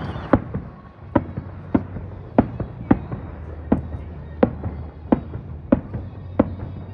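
Aerial fireworks shells bursting in quick succession during a finale: about ten sharp bangs, one roughly every two-thirds of a second, each trailing a short echo, over a steady low hum.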